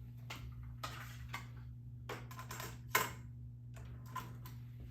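A string of sharp plastic clicks and clacks from a cassette being handled out of its case and loaded, with the loudest snap about three seconds in. A steady low electrical hum runs underneath.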